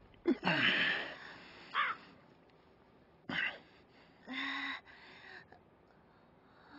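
A man and a woman letting out short pained cries and gasps, a few seconds apart, after bumping their faces together.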